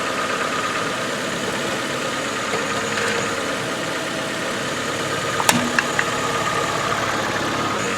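Car engine idling steadily. About five and a half seconds in comes a single sharp crack, followed by two lighter clicks.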